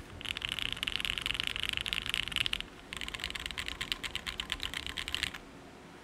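Fast typing on a Mode Sixtyfive 65% custom mechanical keyboard: lubed and filmed Cherry MX Black Ultraglide linear switches in a POM plate, isolated top mount, ePBT keycaps. The keystrokes come as a rapid run of clicks, break off briefly a little over two and a half seconds in, resume, and stop about five and a half seconds in.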